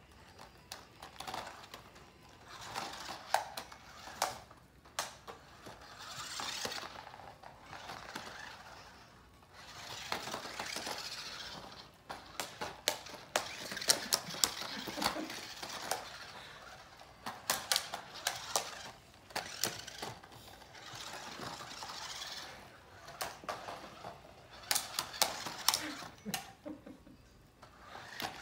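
Small remote-control toy car's electric motor whirring in repeated bursts of a second or two, with sharp plastic clicks and clacks as the car is batted about and knocked over.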